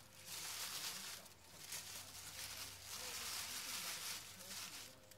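White tissue paper rustling and crinkling as hands unfold it from around a gift, in long stretches with a short break about a second and a half in.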